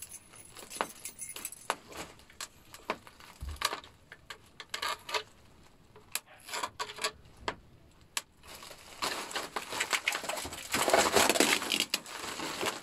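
Clear plastic shrink-wrap crinkling and crackling as it is peeled off a new skateboard deck: scattered crackles at first, then denser, continuous rustling for the last few seconds.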